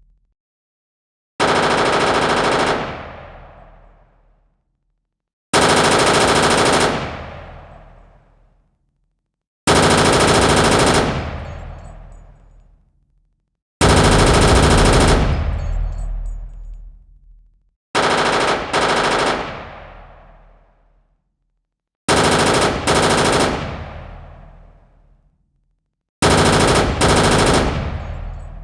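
Designed sound effect of M16-type rifle automatic fire, built from a real M16 recording layered with a large hammer beating on an old truck body. Seven short bursts come about every four seconds, each followed by a fading echo tail, and the later bursts are broken by a brief pause.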